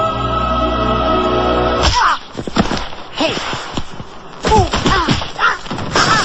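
A held musical chord that cuts off about two seconds in, then a cartoon-style scuffle of thumps and knocks with several short squeaky yelps that rise and fall in pitch.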